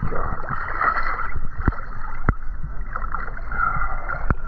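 Muffled water sloshing and lapping around the snorkeler as he wades, with a low rumble on the action camera's microphone. Three sharp clicks or knocks stand out about one and a half, two and a quarter, and four and a quarter seconds in.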